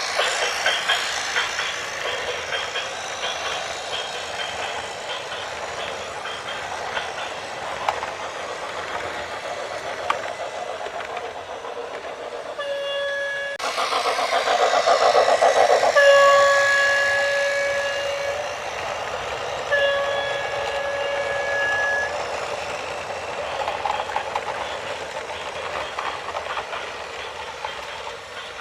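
Train running past with a steady rumble and clatter, loudest about midway. Its multi-note horn sounds three times: a short blast, then two held for about two seconds each.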